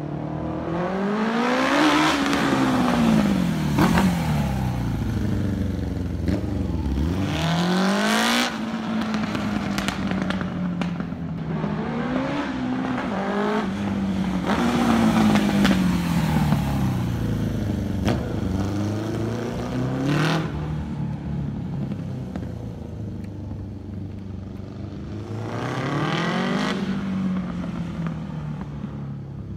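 1983 Kawasaki GPZ 750's inline-four through a LeoVince SBK aftermarket exhaust, the bike accelerating and slowing as it is ridden around; the engine note climbs and falls over and over, with several fast rises.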